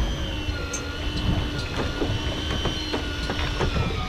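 Electric fishing reel winding in line under load: a steady motor whine that dips slightly in pitch now and then, with scattered clicks and knocks.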